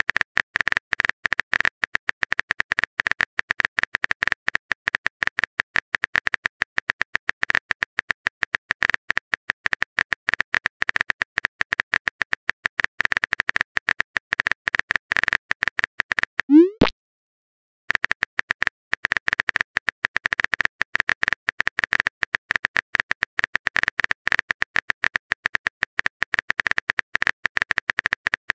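Rapid, continuous phone-keyboard typing clicks. About two-thirds through they break for a short rising blip, a second of silence follows, and then the clicking starts again.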